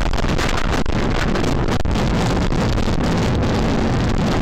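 Loud, steady road and wind noise inside a car moving at highway speed, as picked up by a dashcam, with many small knocks and rattles.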